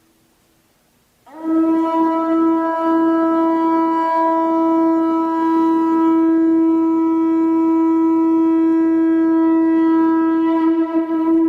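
Conch shell trumpet blown in one long, steady note that starts about a second in and is held, wavering slightly near the end.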